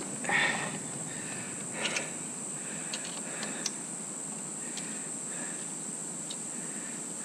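A few short clicks and rustles of hands and parts being handled under a motorcycle, the loudest about half a second in and another near two seconds, over a steady high-pitched hiss.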